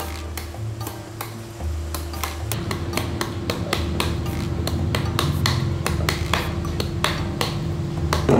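Kitchen knife chopping into a peeled green papaya, scoring the firm flesh into strands: a quick run of sharp taps, about three to four a second, sparser for the first couple of seconds.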